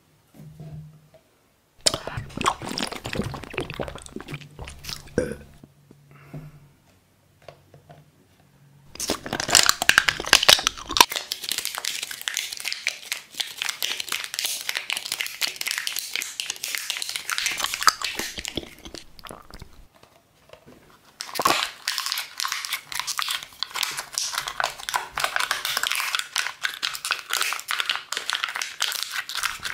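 Crisp crackling and crunching of brittle, clear bottle pieces being snapped and crinkled in the hands, in three long spells with short pauses between them.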